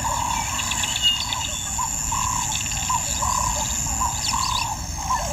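Wild outdoor ambience: an animal gives short calls over and over, about two a second, with scattered quick bird chirps and a steady high whine behind them.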